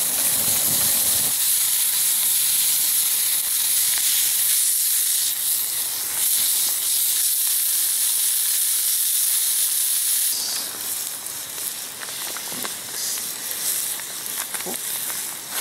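Ground meat sizzling in a hot frying pan over a charcoal and wood fire: a loud, steady hiss. About ten seconds in it drops to a quieter sizzle with scattered small crackles.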